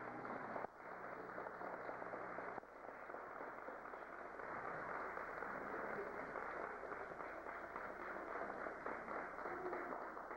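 Audience applauding, a steady dense clatter of clapping.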